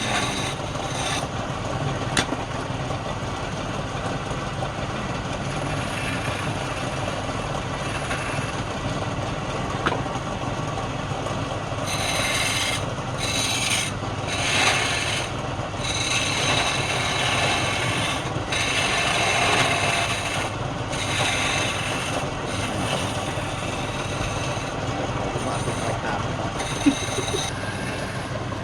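Woodturning lathe running with a steady motor hum while a tool scrapes or rubs against the spinning wood. From about halfway through, the scraping breaks off briefly several times and starts again.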